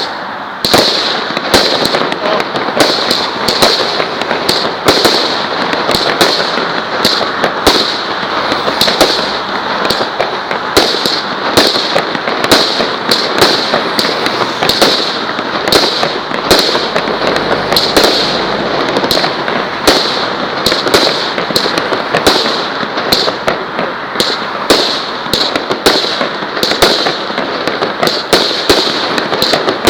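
Fireworks going off shot after shot, about two reports a second, over continuous crackling.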